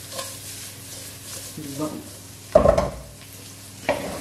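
Sliced sujuk sausage sizzling as it fries in olive oil in a non-stick wok, tossed and stirred with a wooden spoon. There is a loud knock about two and a half seconds in, and quick spoon scrapes near the end.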